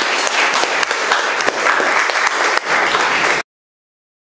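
Audience applauding with dense, steady clapping that cuts off suddenly about three and a half seconds in.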